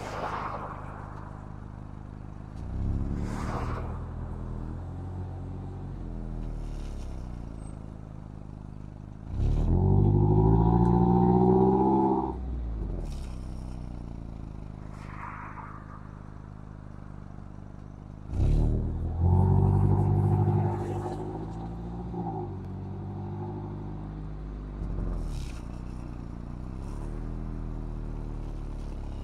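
Mazda MX-5's four-cylinder engine through its stock exhaust, driving uphill. It accelerates twice, about ten and nineteen seconds in, the pitch climbing each time before dropping off suddenly. Between the pulls it runs quieter at a steady cruise.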